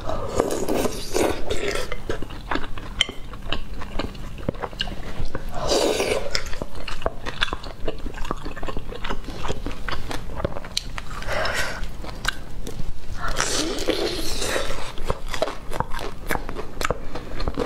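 Close-miked eating through a lapel microphone: noodles slurped from a bowl of soup and chewed, with many small wet mouth clicks and a few longer noisy slurps.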